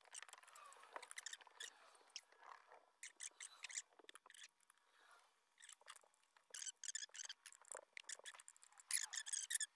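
Light, irregular clicking and rattling of small plastic and metal chainsaw parts being handled and pushed into place by hand, in scattered clusters, the loudest near the end.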